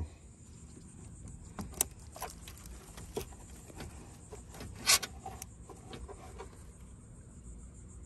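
Scattered metallic clicks and clinks of a socket wrench working on a car battery's negative terminal, loosening it to disconnect the battery. The loudest clink comes about five seconds in.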